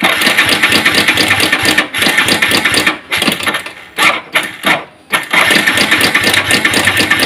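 Yamaha Vixion's 150 cc single-cylinder four-stroke engine cranked on the electric starter, catching and running roughly with a harsh rattling clatter, dropping out briefly a few times. The mechanic takes the noise for a faulty cam chain.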